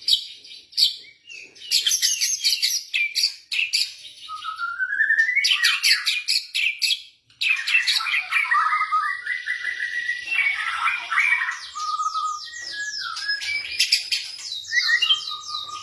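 White-rumped shama singing a fast, varied song of rapid trills, whistles and chattering phrases, with a rising whistled glide about four seconds in and a brief pause just after seven seconds.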